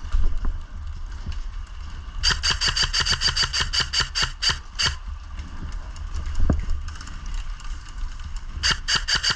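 Airsoft gun firing on full auto: a burst of rapid clicking shots, about eight to ten a second, lasting nearly three seconds, then a second burst starting near the end, over a steady low rumble.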